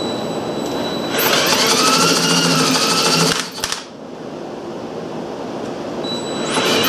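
A cordless drill spins the flywheel of a 1923 Briggs & Stratton PB engine to test for spark. There are two runs of motor whir with a fast even ticking: the first starts about a second in and lasts some two seconds, the second starts near the end.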